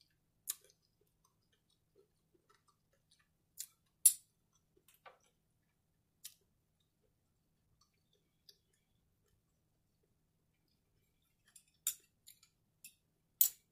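Metal knife and fork clicking against a plate and a small glass syrup dish: a handful of sharp, separate clinks with quiet between them, the loudest about four seconds in and a few more near the end.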